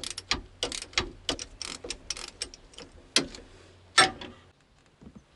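Sharp metallic clicks and clinks, a few per second, from hand work on the bolts and linkage arm of a Bobcat T250's hydrostatic pump controls. Two louder clacks come about three and four seconds in, then the clicking stops.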